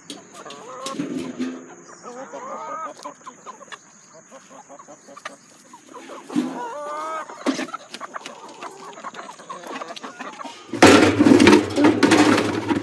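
Hens clucking and calling, then about eleven seconds in, a much louder scraping and rattling as a plastic scoop digs into chicken feed in a metal feed can.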